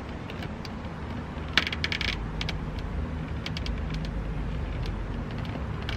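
Light clicks and rattles of small parts and wiring being handled, with a dense clatter of clicks about a second and a half in, over a faint steady low rumble.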